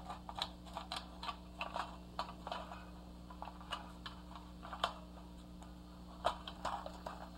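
Irregular light clicks and taps of AR-15 magazines being handled and slid into a magazine cinch's polymer separators and nylon straps.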